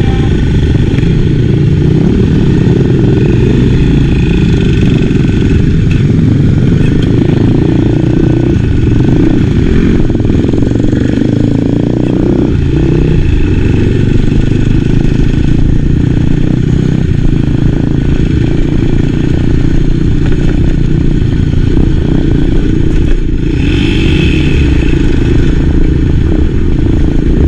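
Enduro dirt bike engine running steadily and loud while riding.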